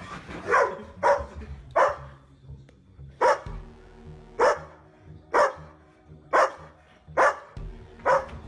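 A dog barking, about nine sharp barks at uneven intervals, over background music.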